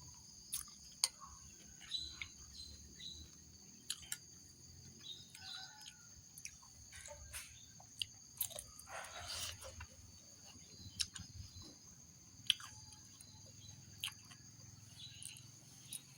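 Close chewing of crunchy fried food, with irregular sharp crunches and bites. Crickets chirp steadily in the background.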